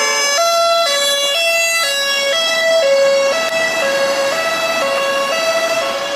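Police car's two-tone siren, alternating between a high and a low note about every half second.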